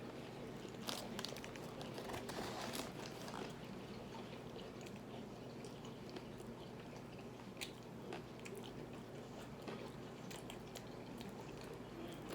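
Close-up eating sounds of a person biting into and chewing an Impossible Whopper burger: soft chewing with scattered small clicks, busiest in the first few seconds.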